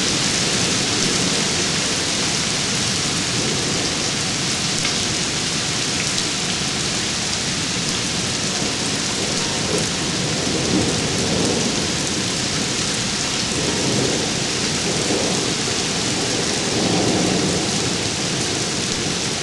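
Heavy rain falling steadily on grass, trees and standing water, with low rumbles of thunder swelling up several times in the second half.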